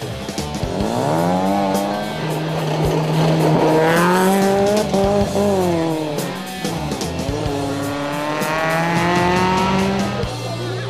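Chevrolet Aveo rally car's four-cylinder engine revving hard under acceleration, its pitch climbing about half a second in, holding, surging again and dropping around four to five seconds in, then climbing once more near the end.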